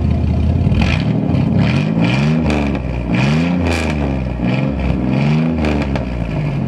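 Vehicle engine being revved again and again, its pitch climbing and dropping in several swells over a steady low rumble.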